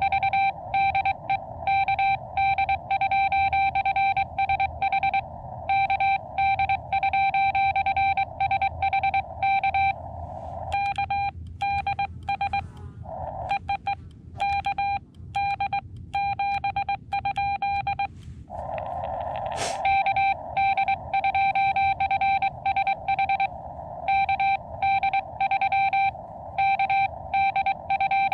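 Morse code (CW) beeps from a Xiegu X6100 ham radio transceiver: a single steady-pitched tone keyed in dots and dashes over a band of receiver hiss. This is a CQ call and a station answering with its callsign. About halfway through, the keying goes quieter for several seconds, and a short click comes before it grows loud again.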